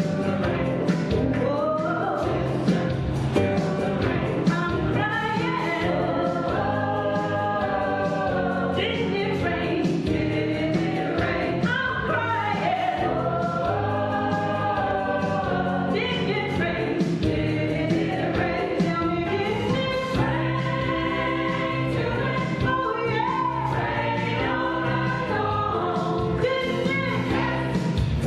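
A gospel choir singing a song with instrumental accompaniment and a steady beat.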